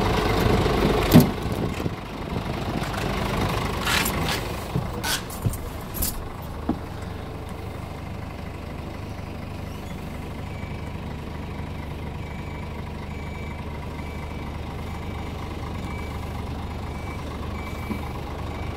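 Scania R450's 13-litre straight-six diesel idling steadily. A sharp click comes about a second in and a run of clicks and knocks follows from the cab door and someone climbing in. From then on the idle is heard muffled from inside the cab, with a faint high beep repeating evenly from about ten seconds in.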